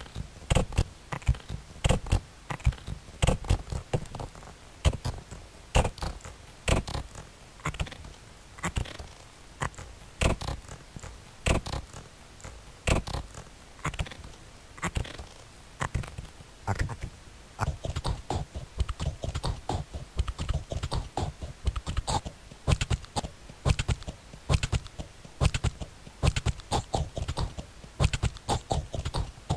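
Electronic noise music made of dense, irregular clicks and crackles, with low thuds coming and going beneath them.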